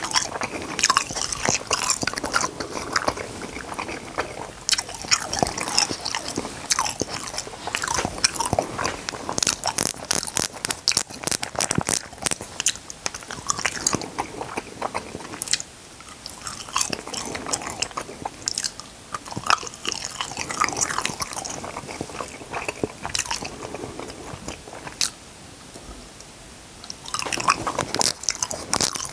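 Close-miked eating: a person biting and chewing, with crisp crunching and crackling, in several spells separated by short quieter gaps.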